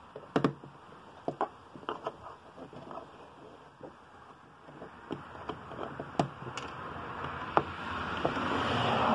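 Sharp, irregular plastic clicks and taps as a thin pry tool works the plastic push-pin rivets out of a Ford Freestar's plastic wiper cowl, about a dozen clicks in all. A rustling hiss builds up near the end.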